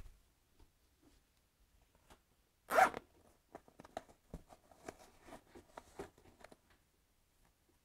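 Zip on the bottom pocket of a Helite airbag rucksack pulled open in one quick stroke about three seconds in. A few seconds of fabric rustling and small clicks follow as the stowed helmet holder is drawn out.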